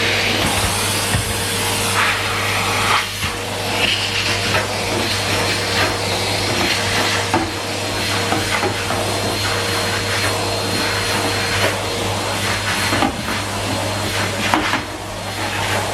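Numatic Henry Pet cylinder vacuum cleaner running steadily, its motor humming under a rushing hiss of suction that swells and fades as the floor tool is pushed back and forth. There are occasional light knocks and rubbing of the tool on the floor.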